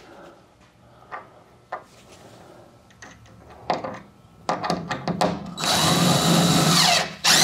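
Cordless drill driving a screw into a plywood wall panel: a few knocks and clicks, then the motor runs steadily for about a second and a half, with another short burst near the end.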